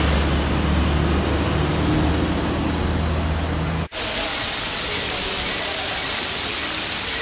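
A steady low hum under a noisy street background, cut off suddenly about four seconds in; then heavy rain falling on a pool of water, an even hiss.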